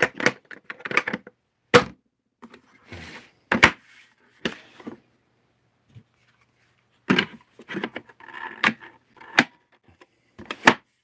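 Hands handling the hard plastic housing of a Makita 18V cordless wet/dry vac around its battery slot: a scattered series of sharp clicks and knocks with soft rubbing in between. The vac's motor is not running.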